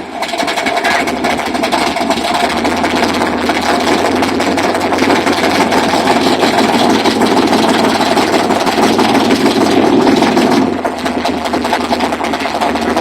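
Pontiac Firebird's engine idling steadily, easing off slightly near the end.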